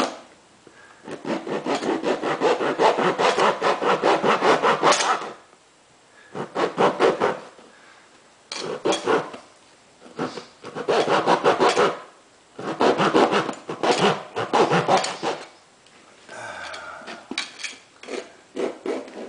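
A keyhole saw's blade rasping back and forth through the toe of a worn leather Justin boot in several bouts of quick strokes with short pauses between them, the last bout near the end quieter.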